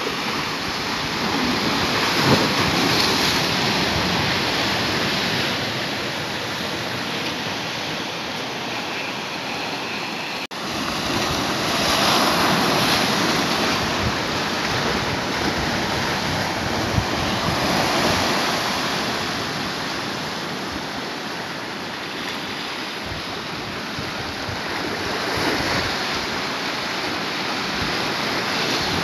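Sea surf breaking and washing over coastal rocks: a continuous rush of water that swells every few seconds as waves surge in, with a brief cut about ten seconds in.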